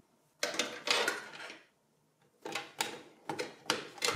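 A SATA data cable being handled and plugged in inside a steel desktop PC case: a clatter about half a second in, then a run of sharp clicks and rattles over the last two seconds.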